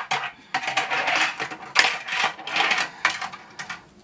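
Tech Deck fingerboard rolling across a hard plastic ramp in several short runs, each starting with a sharp clack and trailing off in a hissing roll, with hard plastic clatter.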